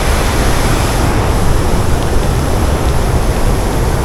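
Loud, steady rushing of dam outflow water churning through the spillway, with a low rumble underneath.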